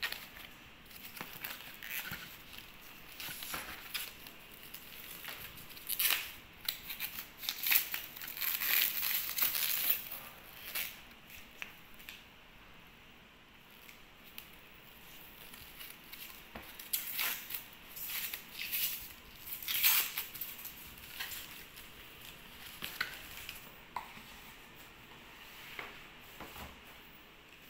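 Rustling and crinkling of foam net fruit sleeves and packaging as fruit is handled in gift boxes, in irregular bouts with a few sharp knocks of lids and trays being moved.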